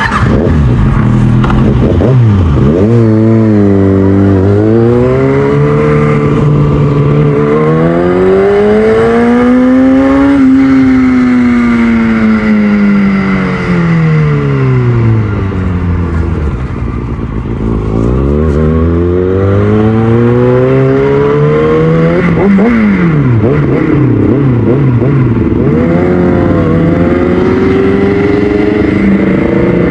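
Kawasaki ZX6R's inline-four running through a Yoshimura exhaust under way. The revs climb steadily for several seconds to a peak about ten seconds in, fall away again, then rise once more, with a couple of quick dips and blips in the second half.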